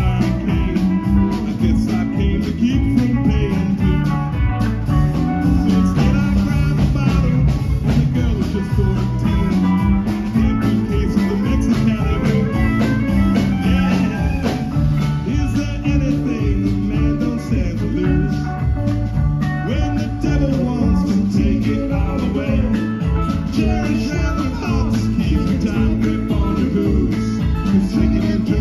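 Live rock band playing a steady, upbeat groove on electric guitars, bass, keyboard and drum kit, amplified through a PA.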